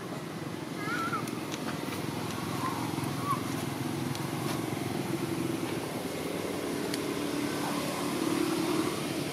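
Steady low drone of motor vehicle engines, like road traffic, with a few faint high chirps in the first few seconds.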